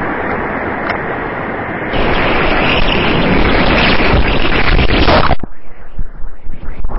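Whitewater rapids rushing loudly around a kayak, picked up by a helmet camera; about two seconds in the rush grows louder. Near the end the sound suddenly turns muffled, with uneven thumps, as the kayak plunges into the rapid and water washes over the camera.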